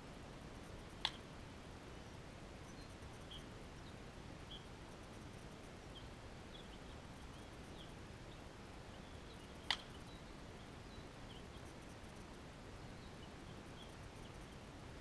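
Two sharp bat-on-ball hits, the first about a second in and the second near ten seconds, during batting practice. Faint, short bird chirps are scattered throughout.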